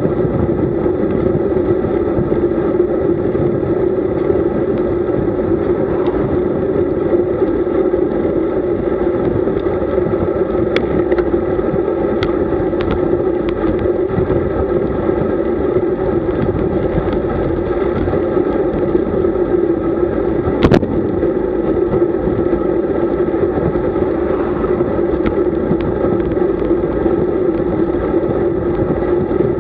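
Steady wind and road noise from a bicycle riding at speed, picked up on the moving camera's microphone. It holds even throughout, with a few faint clicks and one sharper click about twenty seconds in.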